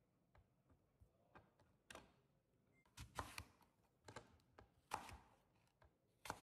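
Kitchen knife cutting an apple into wedges on a cutting board: a series of sharp knife strikes against the board, faint at first and louder from about two seconds in, then the sound cuts off abruptly near the end.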